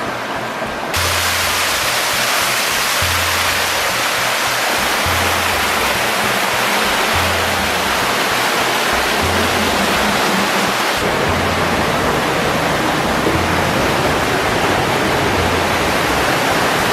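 Loud, steady rushing of falling water, like a waterfall, changing abruptly about a second in and again near eleven seconds in. Under it, background music pulses a low bass note about every two seconds.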